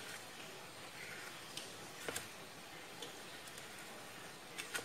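A few faint, scattered clicks and taps of a spoon against plastic bowls and a plate as banana slices are dipped in batter and pressed into breadcrumbs.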